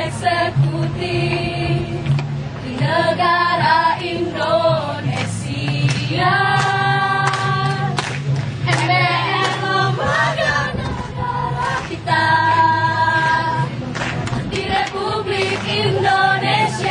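A choir singing, with held notes throughout.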